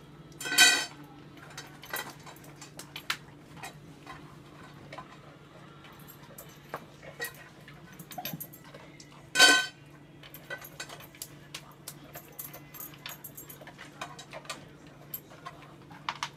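Plastic covered cat litter box being handled by a toddler: scattered clicks, clacks and rattles of plastic and litter over a steady low hum. Two brief louder sounds come about half a second in and about nine and a half seconds in.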